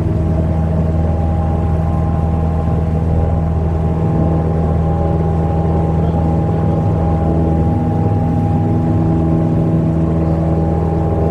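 Cessna 172M Skyhawk's Lycoming O-320-E2D four-cylinder air-cooled engine and McCauley fixed-pitch propeller running steadily in flight, a constant drone heard inside the cabin.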